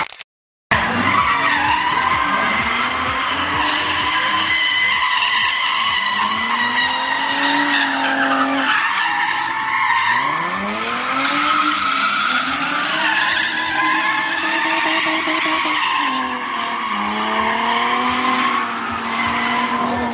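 Drift car engine revving up and down, its pitch rising and falling again and again, with the tyres squealing as the car slides sideways through the corners. The sound drops out for about half a second right at the start.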